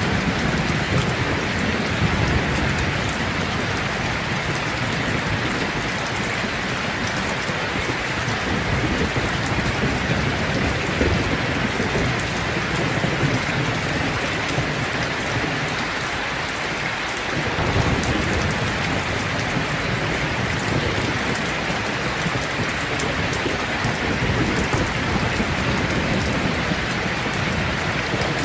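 Steady rain falling, with a low rumble of distant thunder underneath that swells and fades and drops away briefly a little past halfway.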